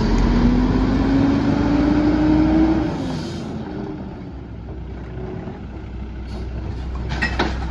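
Mack MR garbage truck's diesel engine pulling the truck forward, its pitch rising steadily for about three seconds, then an air-brake hiss as it stops. After that the engine idles with a low rumble, and a sharp clatter comes near the end as a trash can is emptied into the rear hopper.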